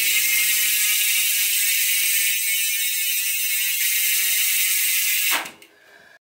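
Rear freehub of a Trek Remedy 8 mountain bike buzzing as the back wheel spins freely: the pawls click past the ratchet so fast that they merge into one loud, steady buzz. It cuts off sharply about five seconds in, when the wheel stops.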